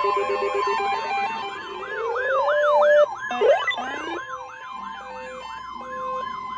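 Layered electronic siren and alarm tones: a fast up-and-down wail repeating about two and a half times a second over a steady high tone and a low two-note beeping, with a rising glide that cuts off about three seconds in.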